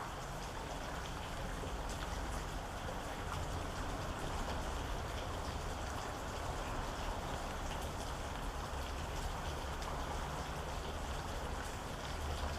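Steady rain, with many scattered small drops tapping on a surface and a low rumble underneath.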